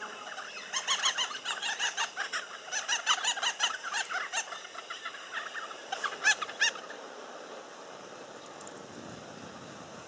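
Babblers chattering: a rapid, dense run of loud, repeated cackling call notes that stops abruptly about seven seconds in, leaving only faint wind.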